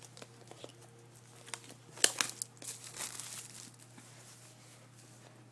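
Plastic wrapping being torn and crinkled off a Blu-ray box set, with scattered crackles and the densest burst about two seconds in.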